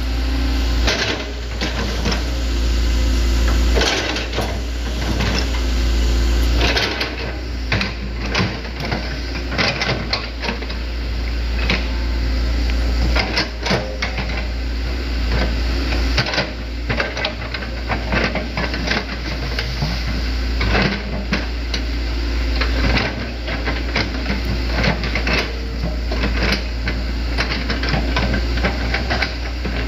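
Hitachi Zaxis 110MF excavator working, its diesel engine running as a steady low rumble under dense, irregular clatter and knocks as the arm and bucket dig in the ditch.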